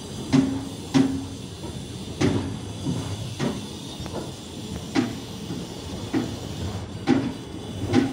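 Passenger train coaches rolling slowly past, their wheels clacking over rail joints about once a second at uneven spacing, over a steady rumble.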